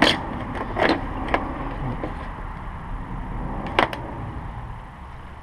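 Steady background noise with a few sharp clicks or knocks, fading down near the end.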